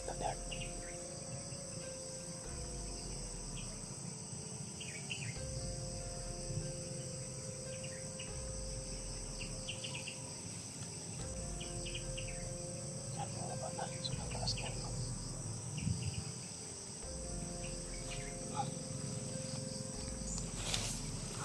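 Steady, high-pitched drone of insects, with short chirps scattered throughout.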